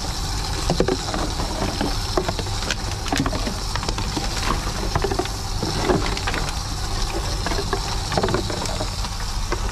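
A TOMRA reverse vending machine running as plastic bottles are fed into it, with a steady low hum and scattered knocks and clatters of the bottles going through.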